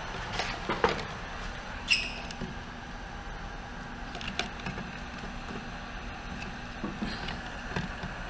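Handling noise: scattered knocks and clicks as a fuel pump and its hose are pushed into a plastic fuel-pump basket, the two sharpest about one and two seconds in, over a steady background hum.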